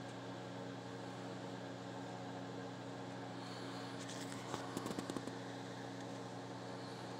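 A steady mechanical hum with a few constant low tones, with a short cluster of quick clicks and rustles about four to five seconds in.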